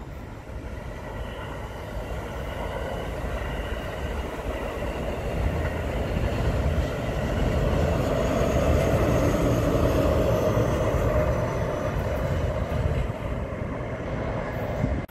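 Diesel-hauled passenger train passing: the rumble of the locomotive and wheels on the rails builds as it approaches, is loudest a little past the middle, then eases as it moves away.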